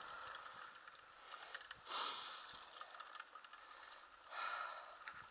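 A person breathing out hard twice, about two and a half seconds apart, over a faint steady hiss and a few light ticks.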